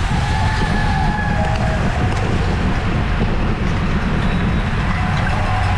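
Steady wind rumble over the microphone of a camera riding along in a bicycle race at speed, with faint thin tones drifting above it.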